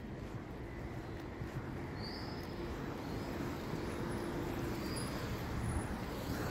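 Street traffic: cars driving up and past on a city street, a steady low engine and tyre noise that swells a little as they come close. A few faint short high chirps sound over it.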